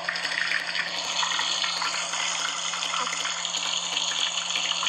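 A steady rush of water, coming in suddenly at the start and holding even, over a faint steady low hum.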